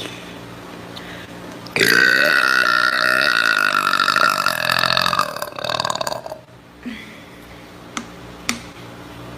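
A woman's single long, loud burp with a rough, rattling tone, starting about two seconds in and lasting about four seconds.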